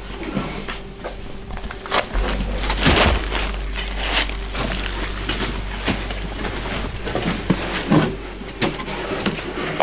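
Footsteps crunching over loose debris, with irregular knocks, scrapes and rustling of clothing, under a steady low rumble.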